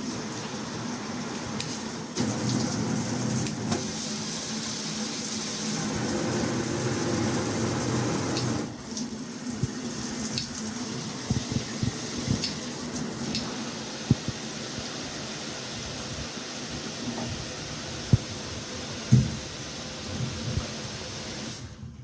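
Water spraying from a HOPOPRO high-pressure shower head, a steady hiss. It gets louder about two seconds in and steps down twice later, with a few light knocks in the second half.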